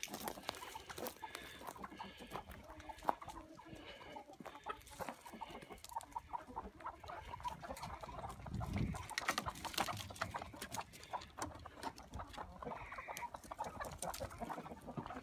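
Chickens clucking in short calls as they are shooed along, over a steady patter of footsteps and rustling in dry leaves.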